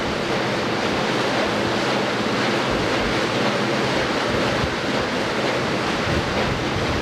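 Riverboat paddlewheel turning and splashing through the water, a steady rushing churn with wind buffeting the microphone.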